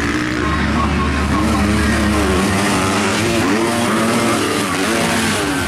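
Several motocross dirt bikes racing on a dirt track, their engines revving up and down again and again as the riders work the throttle and shift through the gears.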